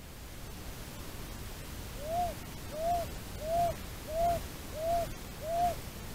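A bird giving six short hooting notes, evenly spaced about two-thirds of a second apart, starting about two seconds in; each note rises and falls slightly in pitch.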